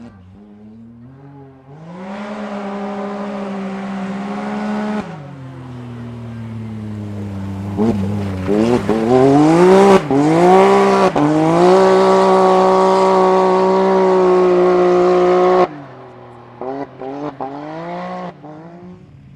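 Side-by-side rally buggy's engine at full throttle. Its pitch rises and drops several times as the throttle is lifted and reapplied, then it holds a steady high note and cuts off abruptly. Near the end another rally car gives a few short revs.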